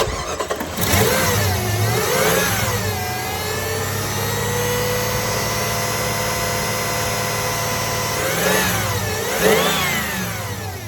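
2004 Jeep Grand Cherokee engine running, revved up and back down twice with a steady run in between.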